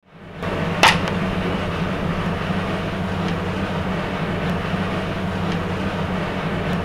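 Steady low rumble with a hum, like running machinery, with one sharp click about a second in.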